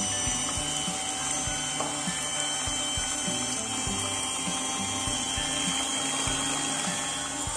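Electric hand mixer running steadily, its twin wire beaters whisking eggs and sugar in a glass bowl, with a steady high whine.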